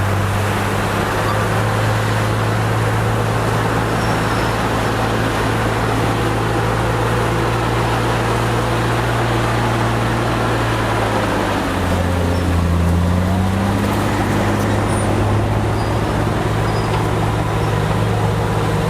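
Heavy earthmoving machine's diesel engine running steadily under work. Its pitch drops about twelve seconds in and rises again a couple of seconds later.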